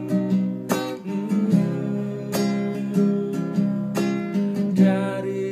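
Classical acoustic guitar playing a chord accompaniment: chords strummed and left to ring, with a fresh stroke every second or two.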